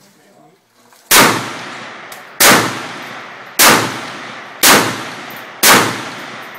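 Five aimed semi-automatic rifle shots from a CZ VZ-58 Sporter in 7.62×39mm, roughly a second apart, each one trailing off into a long echo.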